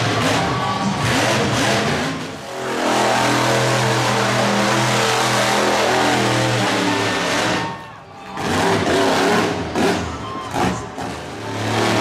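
Monster truck engine revving hard, held at high revs for several seconds, then cutting back sharply and blipping in short surges as another truck's engine revs.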